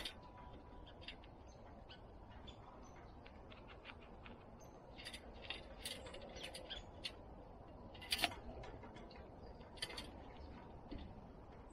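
Animals at a bird feeder: scattered light clicks and taps over a steady low background noise, with a louder tap about eight seconds in and another about ten seconds in.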